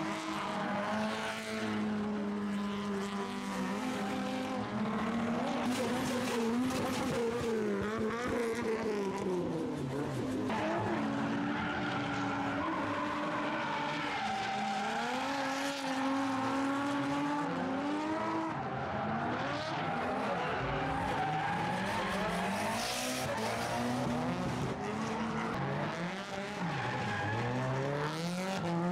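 Drift car engines revving up and falling off again and again as the cars slide, over a continuous tyre squeal from the skidding tyres.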